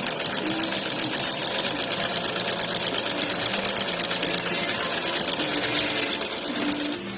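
Slipper sewing machine running at speed: a fast, even stitching rattle that stops near the end.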